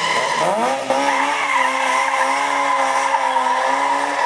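Car doing a burnout: the engine revs up about half a second in and is then held at steady high revs while the drive tyres spin on the pavement.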